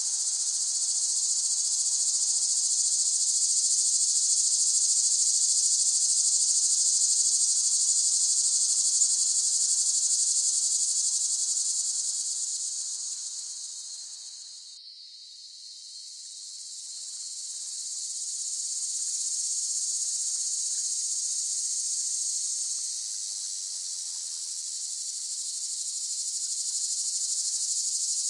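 Cicadas singing in a continuous shrill chorus, which dips to its quietest about halfway through and then swells back.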